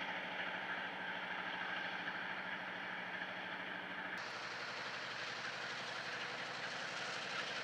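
Diesel freight locomotive running steadily at idle with its exhaust stack on fire. About four seconds in the sound changes abruptly, losing some of its low rumble and turning hissier.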